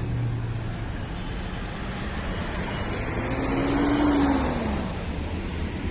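City street traffic, with one vehicle passing close about four seconds in, its engine note rising and then falling away as it goes by.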